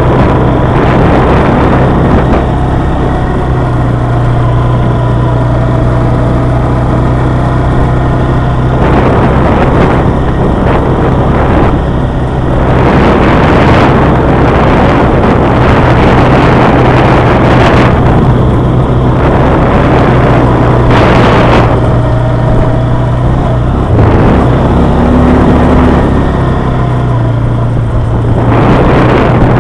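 Quad bike engine running steadily while riding along a gravel dirt track, a constant low hum with a loud rushing noise over it.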